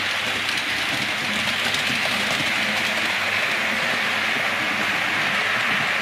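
Model train running along layout track, a steady rolling hiss from its wheels and motor with faint clicks over the rail joints.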